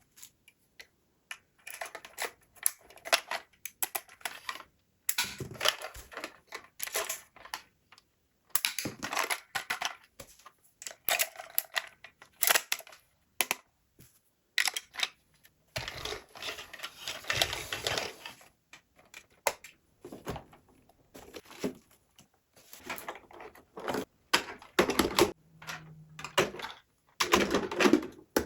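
Plastic toys and their packaging being handled: irregular clicks, taps and crinkly rustles in short bursts with brief silent gaps between them.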